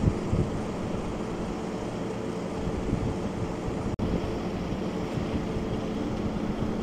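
A large engine running steadily at an even pitch, a constant drone with a low rumble. The sound drops out for an instant about four seconds in.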